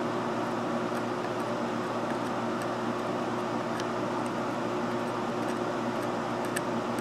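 A steady mechanical hum runs throughout. Over it come a few faint ticks of an X-Acto knife blade scraping alkaline battery-leak corrosion off a circuit-board pad, one about four seconds in and one near the end.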